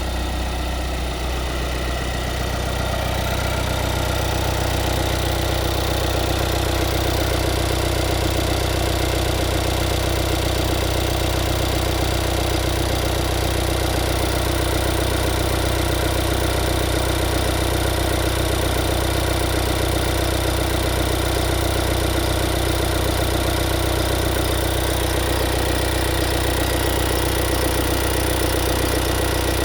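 Skoda Octavia IV engine idling steadily.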